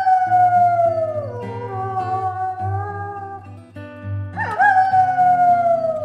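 Gray wolf howling twice: each howl is a quick rise, then a long, slowly falling glide. The first howl is fading during the first second, and the second starts about four and a half seconds in. Background music plays underneath.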